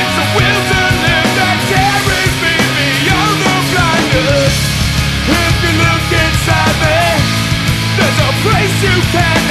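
Punk rock song played by a full band: distorted electric guitars over bass and drums, with a wavering guitar line weaving over a steady bass part.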